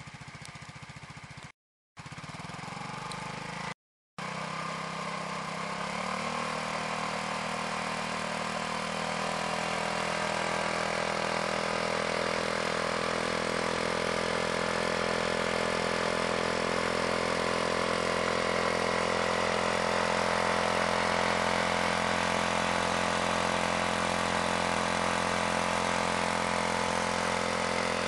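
Honda SH 125 scooter's single-cylinder four-stroke engine idling through an aftermarket ENDY oval stainless exhaust silencer. The sound cuts out twice briefly in the first few seconds. After that the note is steady, rising slightly in pitch around six seconds and growing a little louder before it levels off.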